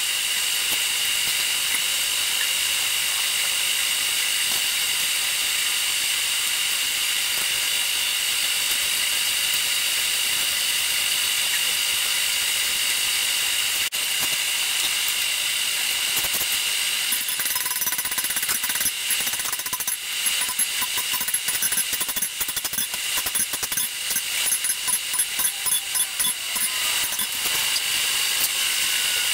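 Hand hammer striking hot 5160 leaf-spring steel on an anvil while a bowie knife blade is forged, over a steady hiss. The blows come fast and dense through the second half.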